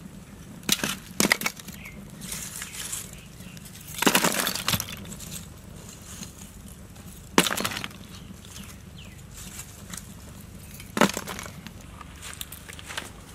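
Lumps of charcoal dropped onto a wood fire in a clay stove, clinking and clattering against each other. The clinks come in separate sharp knocks a few seconds apart, one short cluster of them about four seconds in.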